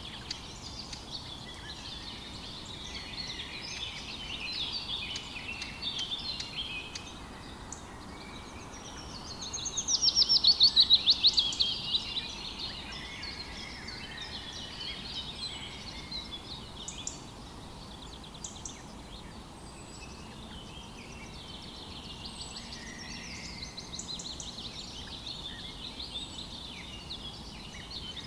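Several songbirds singing and chirping over a steady background rush of a river. About ten seconds in, one bird gives a loud, rapid trill lasting about three seconds that falls in pitch.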